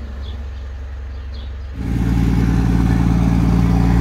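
Vehicle engine idling steadily; about two seconds in it cuts to a louder, fuller idling engine.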